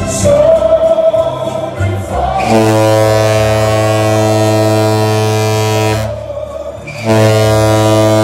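Crowd singing along to party music, then a cruise ship's horn sounds two long, steady blasts: the first from about two and a half seconds in for over three seconds, the second about a second later.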